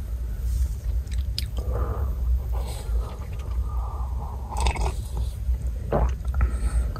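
Scattered crunches, clicks and scrapes, close by, over a steady low rumble.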